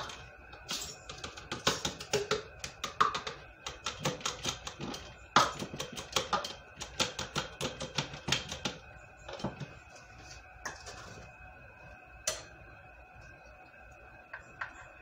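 Rice being portioned from a measuring cup into glass canning jars: a quick run of clicks and rattles against the glass for about eight seconds, then a few scattered clinks.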